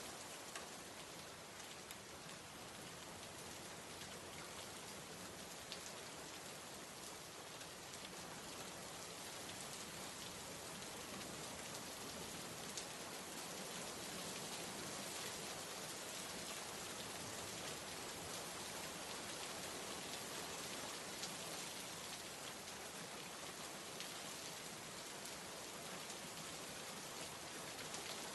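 Steady rain falling, an even hiss with a few sharper drops ticking out of it now and then.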